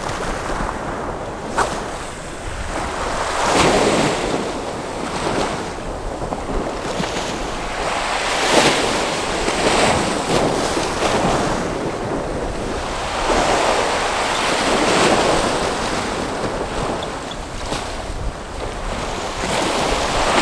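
Sea waves breaking and washing against a sea wall at high tide, the surf swelling in surges every few seconds, with wind buffeting the microphone.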